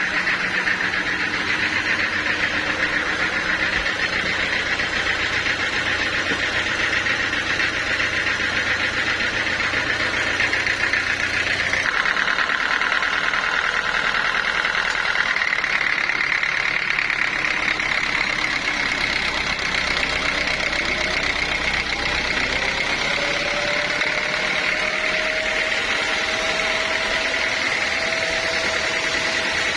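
Sawmill machinery running steadily, an engine-driven saw. About twelve seconds in, the low hum drops away and the sound shifts. Later a faint whine slowly rises in pitch.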